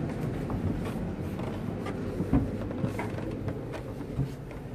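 Footsteps and light knocks going down a yacht's interior stairs, at irregular spacing with one louder knock about halfway through, over a steady low rumble.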